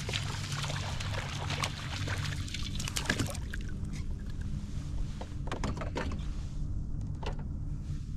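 Fishing kayak on the water: water splashing against the hull, with a steady low hum underneath and a few sharp knocks. The splashing is strongest in the first few seconds and eases off after that.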